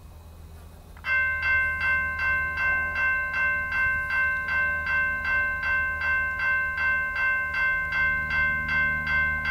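Railway level crossing warning bell starting up about a second in and ringing steadily at a little under three strikes a second, signalling an approaching train.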